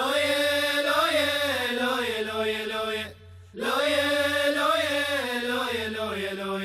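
Opening theme music: a voice chanting two long, gliding melodic phrases, with a short break about three seconds in, over a low pulsing tone.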